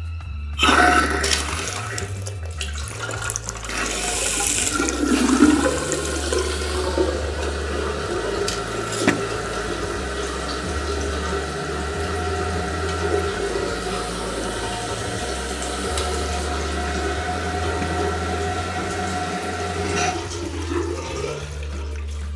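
Water running from a mono basin tap into a ceramic wash basin and draining down through the new waste and plastic bottle trap. It is a steady rush that starts about a second in and tails off near the end. The tap is run to test the freshly plumbed waste and supply joints for leaks.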